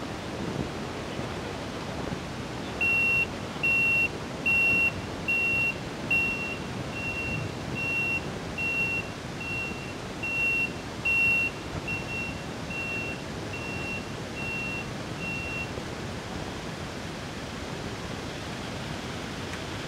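Vehicle reversing alarm beeping: a single high steady tone, a little under one beep a second, starting about three seconds in and stopping about sixteen seconds in, over a steady noisy background.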